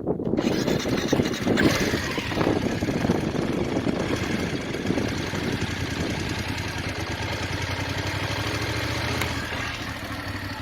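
BMW F850GS parallel-twin engine running at idle, with a short louder burst about one and a half seconds in and steady running after. This is the early, low-mileage engine whose ticking noise the owner says it has always had.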